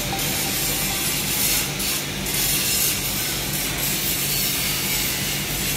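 TIG (argon) welding arc burning on stainless steel pipe at about 190–200 amps: a steady hiss over a low hum.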